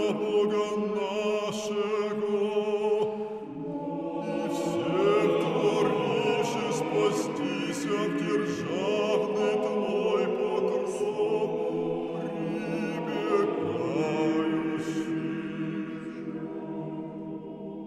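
A choir singing a slow piece in several voices with long held chords. It fades out near the end.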